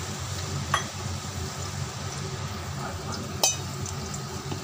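Tamarind paste sizzling gently in hot oil in a steel pan, over a steady low hum. Two sharp metal clinks of a utensil against the pan stand out, one under a second in and a louder one past the three-second mark.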